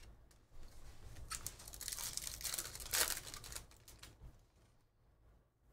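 Foil trading-card pack wrapper crinkling and tearing as it is opened, a high rustle that swells to its loudest in the middle and dies away after about four seconds.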